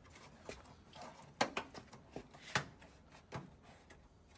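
Plastic retaining clips of a grille trim strip popping loose as the strip is pulled off a pickup's front bumper. There are three sharp snaps about a second apart, with fainter clicks between them.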